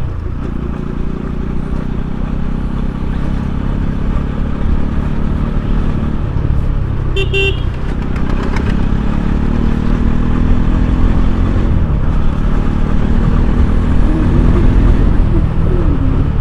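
Bajaj Pulsar NS200 motorcycle riding in traffic, its engine and road noise a steady low rumble that grows slowly louder. A vehicle horn beeps once, briefly, about seven seconds in.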